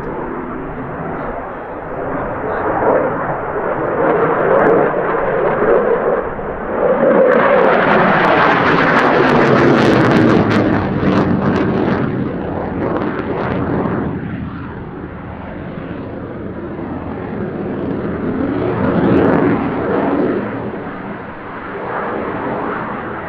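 Saab JAS-39 Gripen's Volvo RM12 afterburning turbofan, jet noise of a fighter flying a display overhead. It builds to its loudest between about a third and halfway through, fades, then swells again near the end.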